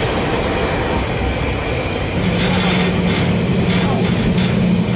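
Diesel-electric freight locomotive idling at close range, a loud steady rumble; a steady low hum joins about two seconds in.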